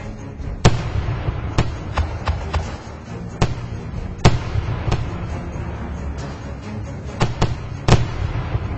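Fireworks display: shells bursting in about a dozen sharp bangs at irregular intervals over a steady low rumble. The loudest bangs come about two-thirds of a second in, a little after four seconds, and near the end.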